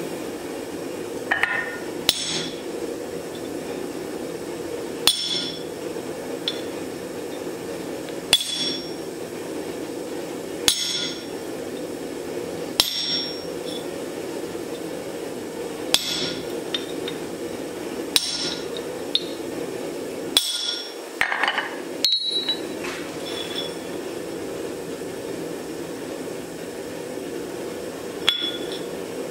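Steel striking a steel anvil: about a dozen sharp metallic clinks, spaced a couple of seconds apart, each ringing briefly. A steady hum runs underneath.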